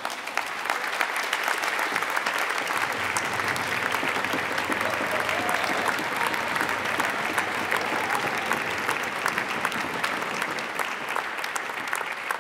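Audience applauding, many hands clapping in a dense, steady patter that swells over the first second and then holds.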